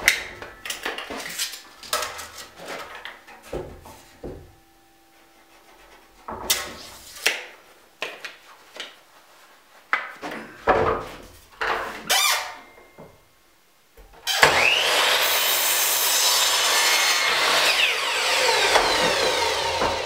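Wooden boards knocked and slid about on a Porter-Cable miter saw's table. About fourteen seconds in, the saw starts suddenly and runs loud for about five seconds as it cuts through the pine board.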